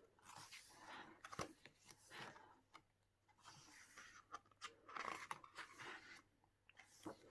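Faint rustling of paper pages being turned by hand in an album photobook, with a few soft taps and clicks.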